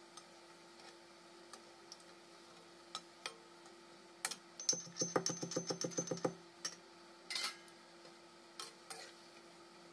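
Metal slotted spoon clicking and scraping against an iron kadhai while pakoras fry in hot oil, over a faint steady hum. Around the middle comes a quick rattle of about ten taps lasting over a second.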